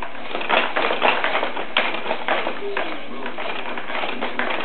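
A Fisher-Price Jumperoo baby jumper clattering as a baby bounces in it: quick, irregular clicks and taps, several a second.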